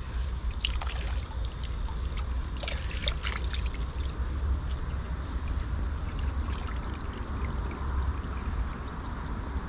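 Water trickling and dripping off a wet cast net as it is gathered up and lifted out of the water, with small splashes, busiest in the first few seconds. A steady low rumble runs underneath.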